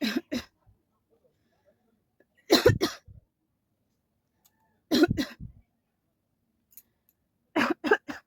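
A woman coughing in four short bouts about two and a half seconds apart, each bout two or three quick coughs.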